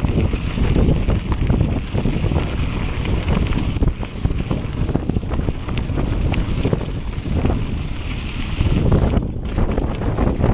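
Wind buffeting the camera's microphone during a fast mountain-bike descent, mixed with the continuous rattle and knocks of the full-suspension bike over rough dirt and stones.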